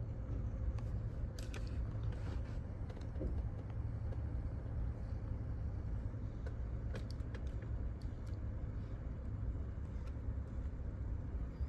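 Steady low rumble with a few light clicks and taps scattered through it. There is no sound of the engine cranking.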